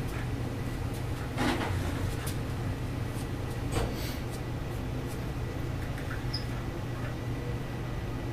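Faint rustles and a few soft knocks as LED light tubes are handled and slid into place on a table, over a steady low hum.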